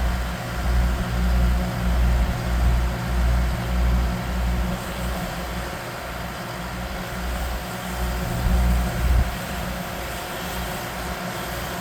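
A large engine idling steadily, with a deep low rumble that swells and fades roughly once a second, stronger in the first half.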